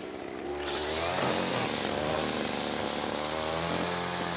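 Petrol grass trimmer cutting grass under snow. Its engine revs up about half a second in, with a loud hiss, then runs steadily at high speed.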